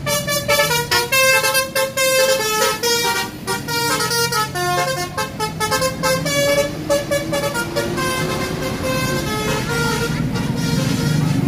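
Bus 'telolet' Basuri melodic air horn playing a quick tune of short stepped notes over the bus engine's running hum. The horn tune thins out after about eight seconds, and the engine is louder near the end.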